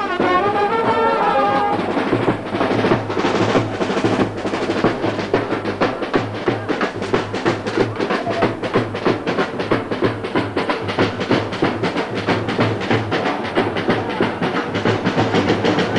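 Brass band music: a horn melody that stops about two seconds in, giving way to rapid, steady drumming.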